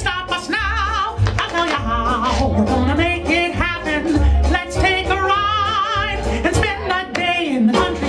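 Cartoon soundtrack song: a voice singing with strong vibrato over a bouncing bass line, playing through a theater's speakers.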